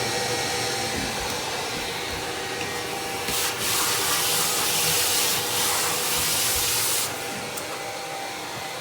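A 1952 Electrolux Model XXX vacuum cleaner running steadily with a motor hum. A louder rushing hiss of air comes in about three seconds in and drops back about seven seconds in.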